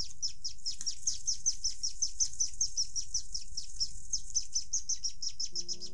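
Chimney swifts chittering: a fast, even run of high, thin chirps, about six or seven a second, each falling in pitch. Music starts to come in near the end.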